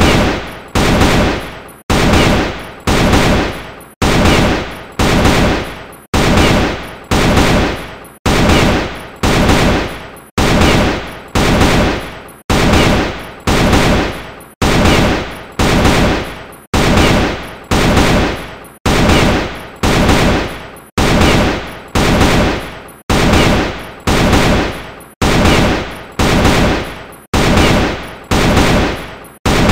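AK-47 rifle gunfire sound effect, repeating evenly about once a second, each report sharp at the start and fading off in an echoing tail.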